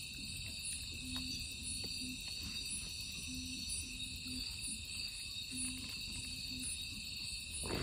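Night insect chorus of crickets trilling steadily. Under it, a faint low two-note call repeats about every two seconds.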